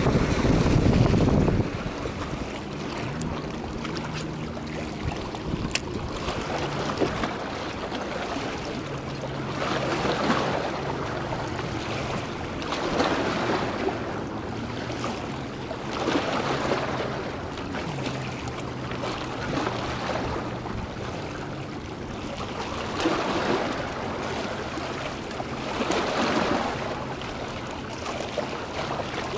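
Small waves washing against a rocky shore, swelling and falling back about every three seconds. A low steady hum runs under them through the first two-thirds.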